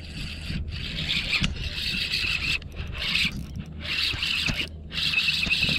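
Spinning reel being cranked to retrieve a lure, a scratchy whirring that stops briefly several times as the turning pauses.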